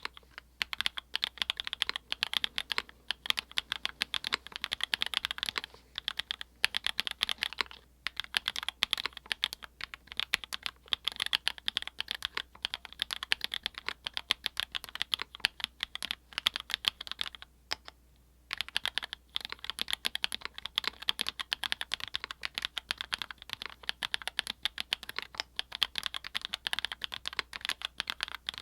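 Typing on a custom mechanical keyboard with lubed, filmed Everglide Peacock Blue linear switches in a polycarbonate plate with PE foam mod: a fast, continuous stream of keystroke clacks, with a few short breaks and one pause of about a second about two-thirds of the way through.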